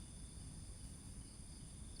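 Crickets trilling steadily, a thin high-pitched drone, over a low rumble of background noise.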